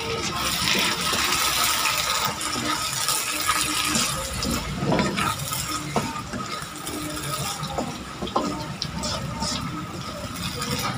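Wooden spatula stirring eggplant and beef in a wet, saucy stew in a nonstick wok, with liquid sloshing and hissing in the pan. The hiss is densest for the first few seconds, then gives way to a few separate scrapes and knocks of the spatula against the pan.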